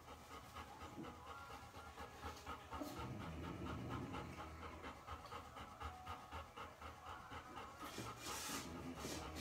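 Small puppies panting in quick, even breaths, with a few louder rustling bursts near the end.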